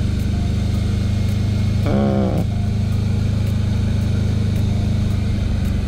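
TGB Blade 1000 ATV's V-twin engine running steadily at cruising speed, heard from the rider's seat. A brief wavering tone sounds about two seconds in.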